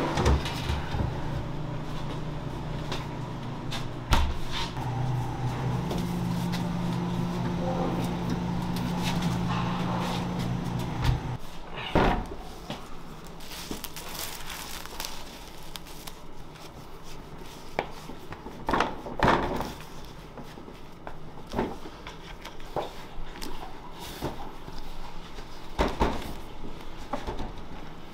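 A proofing cabinet's fan and cooling unit hum steadily, with a knock about four seconds in, until the hum stops abruptly about eleven seconds in. After that come scattered knocks and rustles of kitchen handling as plastic wrap is pulled off a bowl of risen donut dough and the dough is turned out.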